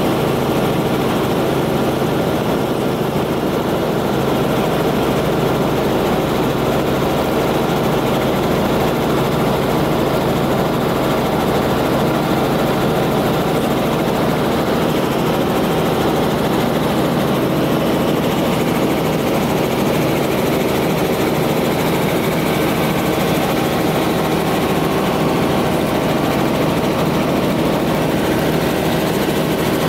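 Helicopter in flight heard from inside the cabin: the engine and rotor make a steady, unchanging drone.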